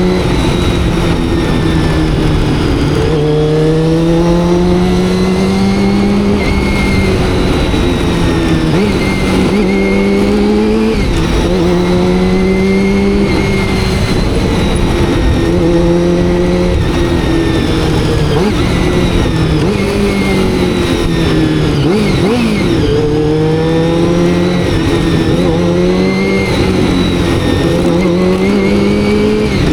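Honda CBR400RR's carbureted inline-four engine pulling hard under way, its note climbing through the revs and dropping back at each gear change, again and again, with wind rush on the helmet microphone.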